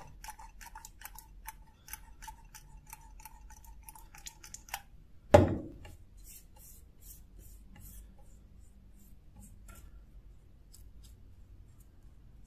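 Trigger-pump oil can being pumped, a quick run of sharp clicks at about four a second over a faint steady squeak, as oil is squirted onto the bare steel blade. A single loud thud comes about five seconds in, then soft brush strokes as the oil is spread with a bristle brush.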